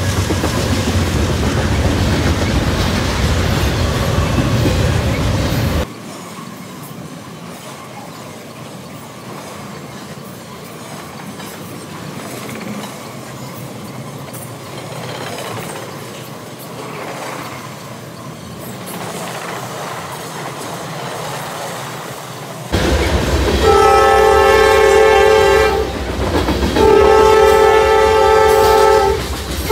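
Norfolk Southern freight train passing close by: loud rumble of the diesel locomotives for the first six seconds, then the cars rolling over the rails, quieter. From about 23 seconds in, a train horn sounds in long blasts, two long, a short one, then another long, the grade-crossing pattern.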